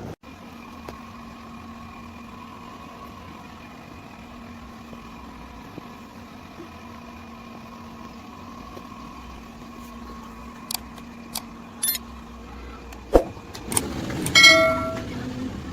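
A steady machine hum runs under a few sharp ticks, then one loud knock. Near the end comes a short ringing squeal.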